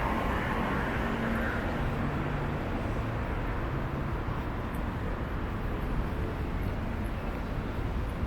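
Steady traffic noise from cars and other vehicles passing on a busy city road, with a low engine hum in the first few seconds.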